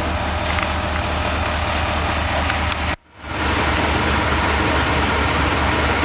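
Fire truck engine idling steadily with a low, even pulse, broken by a brief drop in the sound about halfway through.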